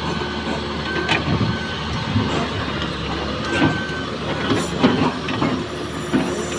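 Excavator engine running under load while the machine works, with several sharp knocks and clanks and two short high metallic squeaks.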